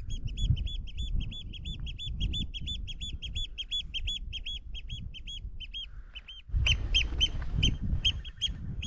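Eurasian oystercatcher calling: a rapid run of short, sharp piping notes, about five a second, that slows and fades over about six seconds. Near the end louder calls come again over wind rumbling on the microphone.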